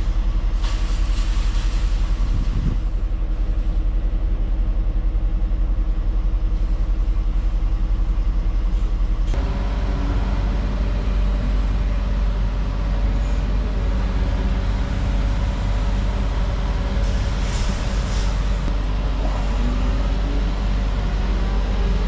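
Heavy vehicle's diesel engine running steadily, its sound changing abruptly about nine seconds in.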